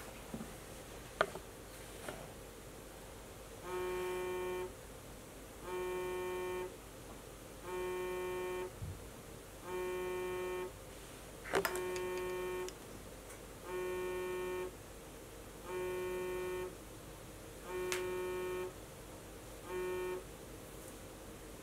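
iPhone ringing for an incoming call with a repeating buzzing tone: nine rings, each about a second long and two seconds apart. The last ring is cut short as the call goes unanswered. A sharp click comes about a second in and another near the middle.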